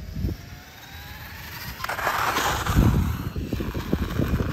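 Losi Promoto RC motorcycle on asphalt: a faint electric motor whine, then about two seconds in a scraping rush followed by a run of knocks.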